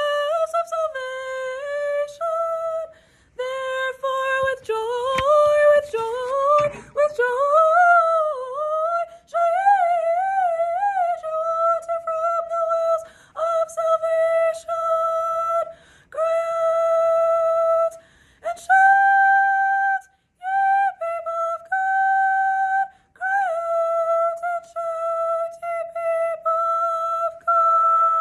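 Solo soprano voice singing unaccompanied (a cappella) in phrases of long held notes, some with vibrato, broken by short breaths.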